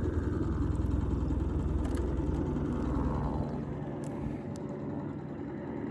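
An engine running with a steady low hum that drops off about three and a half seconds in.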